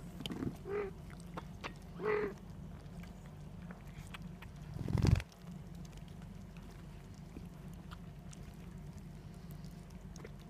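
Kittens lapping cat milk from a bowl: faint small wet clicks throughout, with two short kitten mews about one and two seconds in. About five seconds in, a loud low rumble builds and cuts off suddenly.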